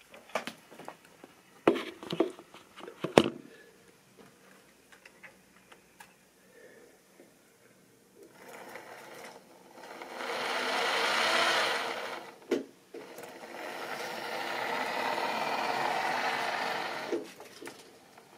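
Model railway train running past: its small electric motor whirring and wheels clattering on the track, swelling as it comes near, with a brief break about two-thirds of the way in, then fading. A few sharp knocks in the first three seconds.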